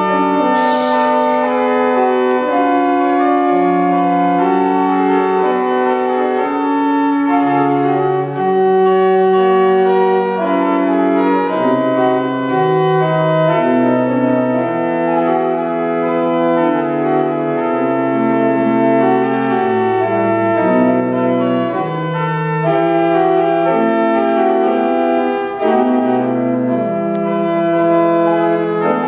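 An 1874 pipe organ playing a piece in full sustained chords, with held notes over a bass line that steps from note to note.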